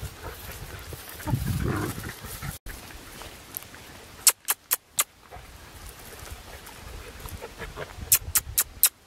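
Labrador-mix puppy's sounds, loudest about a second in. Two quick runs of four sharp clicks break in, about four seconds in and again near the end.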